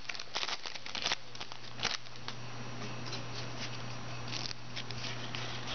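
A stack of trading cards handled and thumbed through, cards sliding and ticking against each other, with a few sharper rustles in the first two seconds and softer, sparser ticks after. A steady low hum runs underneath.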